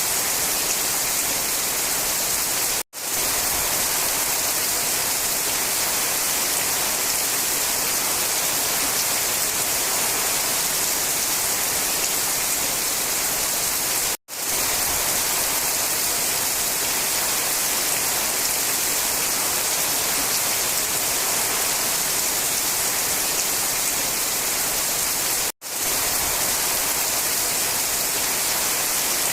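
Steady, even rain hiss, bright and full in the upper range, that cuts out for an instant three times at evenly spaced intervals, about eleven seconds apart.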